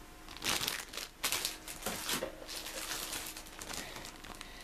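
Crinkling and rustling of a plastic model kit sprue in its plastic bag being handled, in a few irregular rustles, the loudest about half a second and a second and a quarter in.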